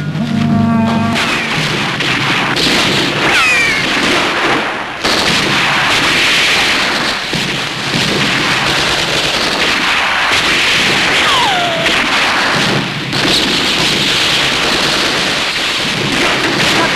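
Film soundtrack of gunfire: a dense, continuous crackle of many shots, with a few brief high falling whistle-like sounds.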